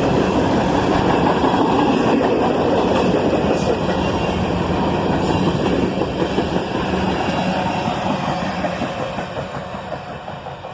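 Freight train rolling past, with the rumble and clatter of car wheels on the rails. The sound fades away over the last few seconds as the train moves off.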